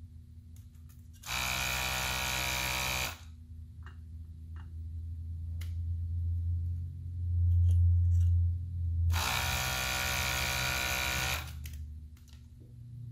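Desoldering gun's vacuum pump buzzing in two bursts of about two seconds each, about a second in and again about nine seconds in, sucking solder off the stepper-motor pins of the circuit board. Between the bursts a low hum swells and is loudest in the middle, with a few light clicks.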